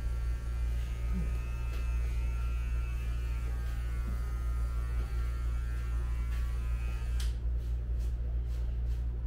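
Electric hair clipper running with a steady low buzz. Its brighter, higher part cuts off abruptly about seven seconds in, while the low hum carries on.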